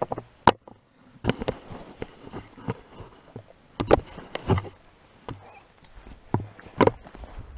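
Footsteps on frozen, frost-covered ground, an uneven series of sharp steps and knocks.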